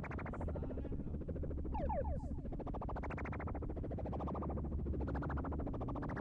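Background music led by a synthesizer, with a fast, evenly pulsing pattern and a few short sliding notes about two seconds in.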